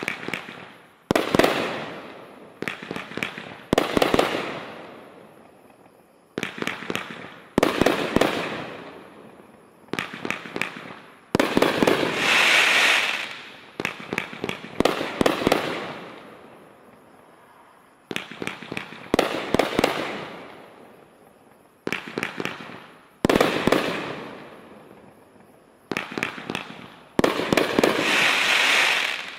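Brothers Pyrotechnics Icon 500-gram cake firing its shots: sharp launch reports and aerial breaks, often two or three close together, each fading off. Two longer sustained stretches come about twelve seconds in and near the end.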